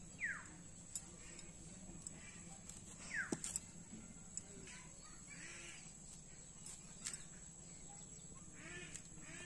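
Quiet village-yard ambience: two quick falling whistles about three seconds apart, faint livestock and bird calls in the background, and a few soft clicks from taro corms being peeled on a bonti blade.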